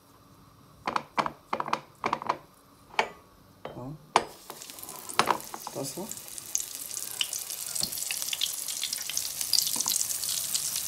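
A handful of short knocks as fish fillets are handled in flour on a plate. From about four seconds in, flour-coated fish fillets sizzle and crackle in hot oil in a frying pan, growing louder.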